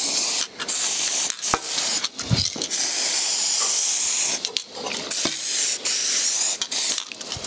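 Aerosol spray can of neutral Vaseline hissing in several bursts, the longest about two seconds mid-way, with light clicks between. It is lubricating a new timing-cover oil seal so that it presses in more easily.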